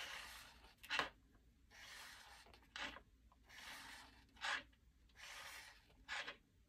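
Marker or highlighter tip drawing straight lines across planner paper, faint. There are four soft, scratchy strokes, each followed by a shorter, sharper scrape.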